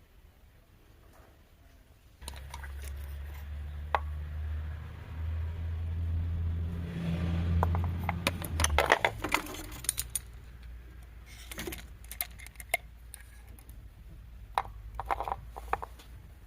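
Car engine running with a steady low hum that swells slightly and then stops about nine seconds in, with metallic clicks and clinks of tools and parts being handled, thickest just after it stops.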